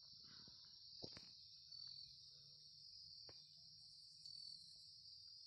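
Faint, steady high-pitched insect chirring, with a few faint clicks about a second in and again past the three-second mark.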